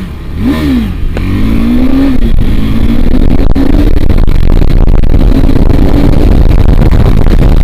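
KTM 390 Adventure's single-cylinder engine accelerating hard through the gears: the revs climb and fall back at each shift, two quick shifts in the first couple of seconds, then pull on steadily, with heavy wind rumble on the handlebar-mounted microphone.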